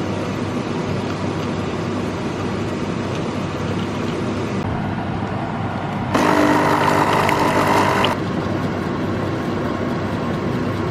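Steady vehicle running noise, with a louder stretch of about two seconds just past the middle.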